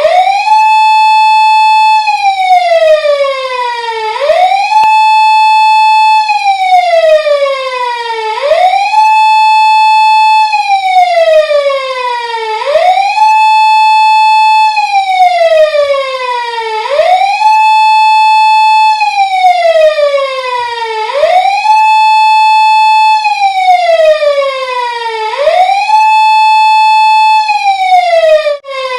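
Japanese police car siren wailing: each cycle rises quickly, holds a high steady tone for nearly two seconds, then slides slowly back down, repeating about every four seconds. It drops out for an instant near the end before the next rise.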